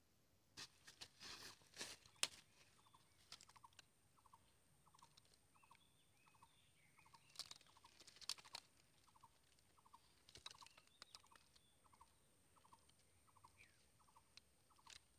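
Faint rustling and sharp clicks in dry leaf litter and bamboo around a bamboo mouse trap, with the loudest click about two seconds in and more rustling near the middle. Behind it, a steady series of short buzzy chirps repeats about once every 0.7 s.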